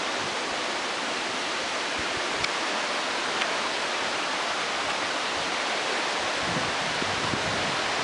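Creek water rushing steadily at a small waterfall, an even, unbroken noise.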